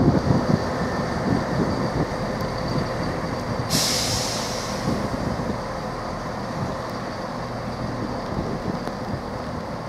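Chiltern Railways Class 168 diesel multiple unit at the platform, its diesel engines running with a low rumble. About four seconds in comes a sudden sharp hiss of air from the train's air brakes, fading over a second or so.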